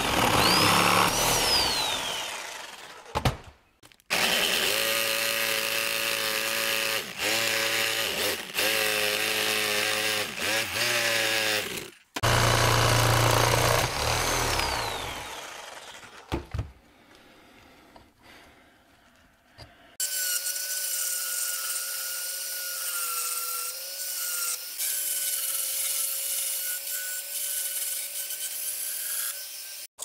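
Power tools working an aluminum rack plate, heard as several short clips: a motor whine rising and then falling near the start, then a motor running steadily with brief stops. A quieter steady whine follows a short lull in the second half.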